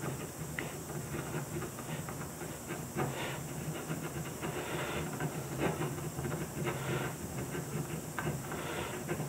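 Ballpoint pen scratching over drawing paper in many short strokes, pressed hard enough to pick up ink from an inked plexiglass plate beneath for an ink transfer drawing. A steady low hum runs underneath.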